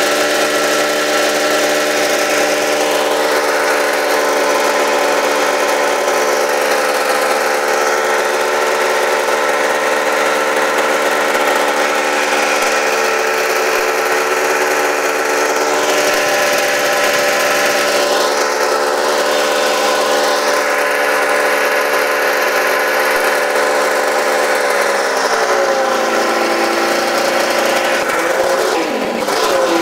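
Two-stroke twin-cylinder snowmobile engine running steadily, its coolant cooler bypassed with looped hoses so it is running hot. About 25 seconds in the engine speed drops a little, and near the end it dips briefly and picks up again.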